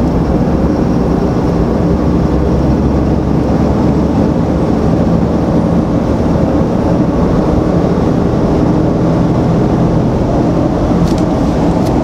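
5th-gen Ram's 6.7L Cummins inline-six turbo diesel pulling under moderate throttle, heard from inside the cab, with a faint steady high turbo whine over the engine drone and road and tire noise. The turbo is building boost to about 13 psi through the stock intake, baffle still in place.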